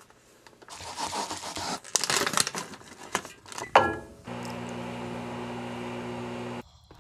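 A plastic cup-ramen sachet being torn open and crinkled as it is squeezed out. About four seconds in comes a sharp click with a short falling squeak, then a microwave oven runs with a steady electrical hum that cuts off abruptly near the end.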